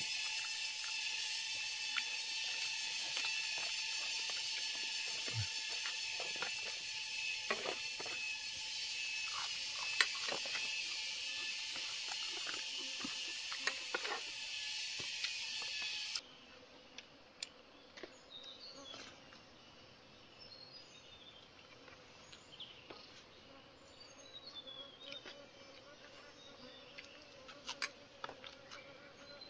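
A steady, high insect chorus with scattered clicks, which cuts off abruptly about sixteen seconds in. After that it is much quieter, with faint short chirps.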